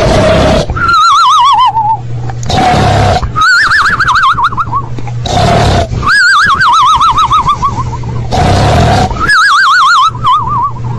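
Loud noise sound effects repeated four times: a harsh blast of noise with a steady hum in it, then a high, wavering, whinny-like call that falls in pitch.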